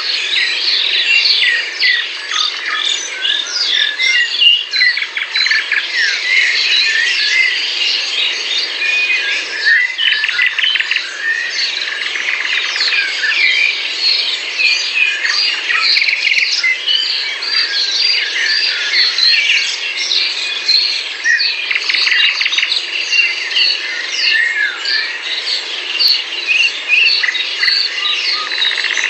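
Dense chorus of many songbirds chirping and singing at once, short overlapping calls and whistles throughout with a few fast trills, over a steady background hiss.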